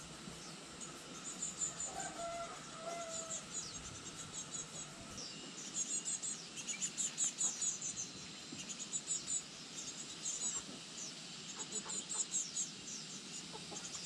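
Farmyard birds calling: bursts of rapid high chirping throughout, with a short lower call about two to three seconds in.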